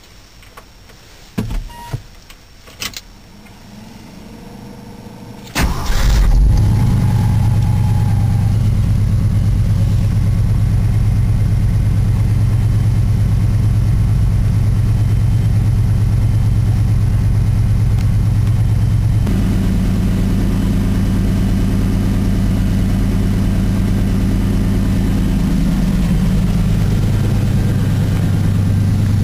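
1974 Ford F-100's 390 V8 cold-started at about −2 °C: a few clicks, then the engine fires almost at once about five and a half seconds in and settles into a steady fast idle.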